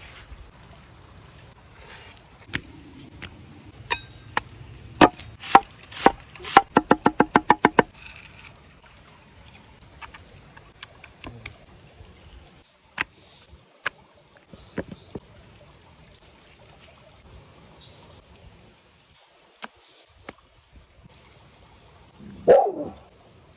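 Knife chopping and knocking on a wooden board during camp food preparation: scattered single knocks, then a quick run of about a dozen evenly spaced chopping strokes about seven seconds in. A short falling-pitched sound comes near the end.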